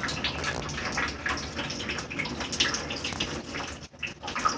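Rainwater leaking in through a window, splashing and dripping in a fast, continuous patter onto soaked towels and into a bucket.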